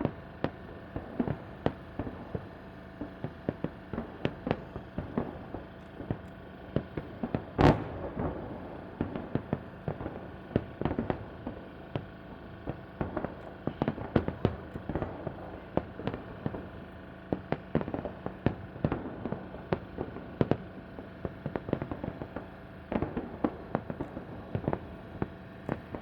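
Fireworks display bursting: a continual irregular run of sharp bangs, often several a second, with one louder bang about eight seconds in.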